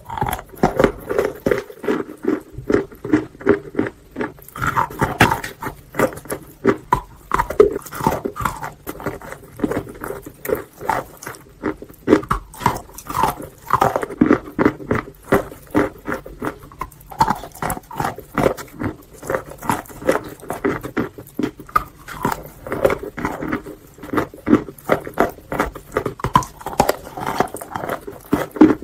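Close-miked biting and chewing of wet chalk, with rapid, irregular crunches and crackles several times a second.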